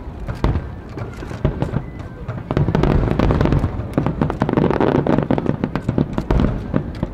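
Fireworks going off in rapid crackling pops and bangs over a low rumble, thickest through the middle few seconds.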